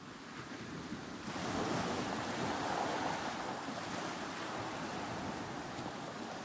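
Black Sea surf: a wave swells and breaks about a second in, then its wash runs on up the shore.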